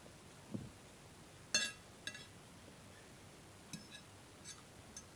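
Eating utensil clinking against a dish a few times, sharp ringing clinks with the loudest about one and a half seconds in and fainter ones spread after it, and a soft thump near the start.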